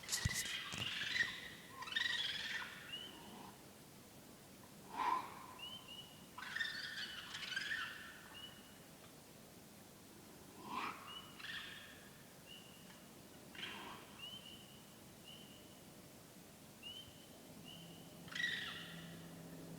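Raccoon calls: about six harsh, wavering cries a few seconds apart. A short high chirp repeats faintly between them, and a faint low hum begins near the end.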